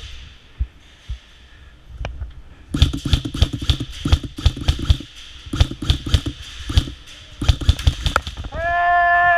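Airsoft electric guns firing in rapid bursts of sharp clicks, several strings over about five seconds. Near the end, a long drawn-out shout.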